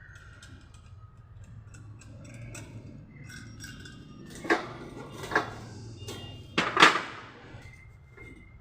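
Metal clinking and clanking, with three sharp ringing clanks about four and a half, five and a half and seven seconds in, the last the loudest, over a low steady hum.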